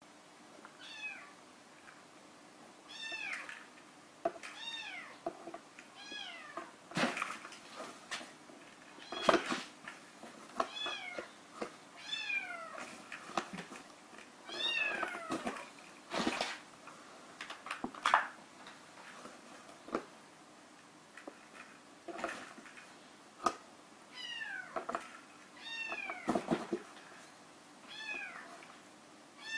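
A kitten mewing over and over, short high calls that fall in pitch, with scattered knocks and scrapes from the kitten moving about in a cardboard box.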